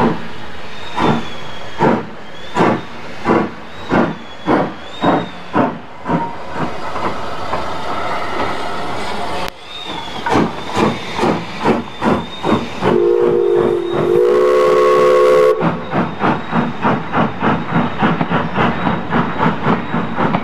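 Steam locomotive working, its exhaust beats coming faster as it gets under way. About thirteen seconds in its steam whistle sounds for about two and a half seconds over a rush of steam, and afterwards the beats run quicker, about three a second.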